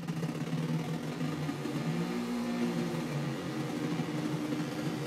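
Eurorack modular synthesizer putting out a steady, buzzy square-wave drone under pulse-width modulation, its tone shifting as a knob is turned about two seconds in.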